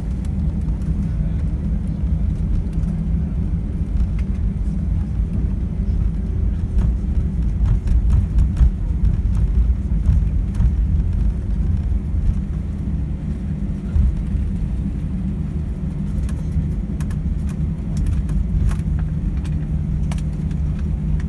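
Airbus A320 cabin noise during the landing rollout: a steady low rumble from the wheels on the runway and the decelerating airframe, with scattered sharp clicks and rattles.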